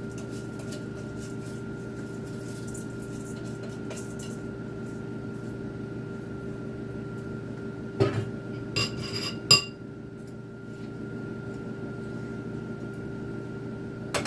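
Steady hum of a kitchen exhaust fan. About eight seconds in, a short run of metal cookware clanks with a ringing tone, the loudest a second and a half later.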